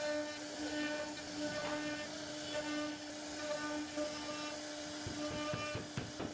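CNC router spindle running at a steady high pitch while its bit cuts a relief carving into wood, with a scratchy cutting hiss and a few sharp ticks near the end.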